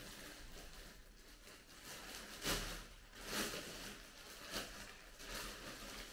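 Plastic shipping bag rustling and crinkling as it is torn open by hand, with a few louder rips and crackles about two and a half, three and a half, four and a half and five seconds in.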